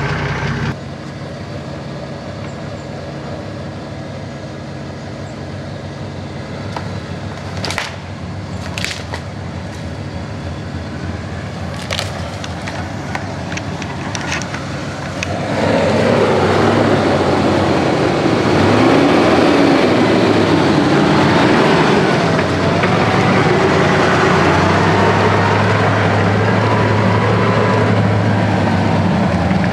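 Four-wheel drive's engine running under load through mud, with a few sharp knocks in the first half. About halfway through it gets much louder and revs up and down as the vehicle pushes through the mud.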